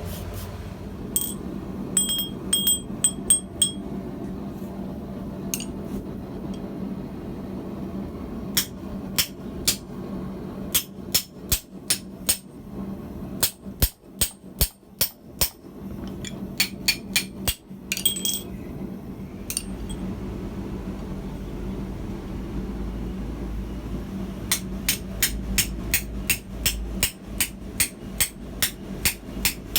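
Hammer blows on hot steel at the anvil while forging a tong blank, in runs of quick strokes about two to three a second with short pauses between. Some lighter blows ring out from the anvil. A steady low hum runs underneath.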